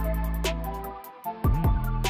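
Background electronic music with a steady ticking beat and deep bass notes that slide down in pitch; it thins out for a moment about a second in, then comes back.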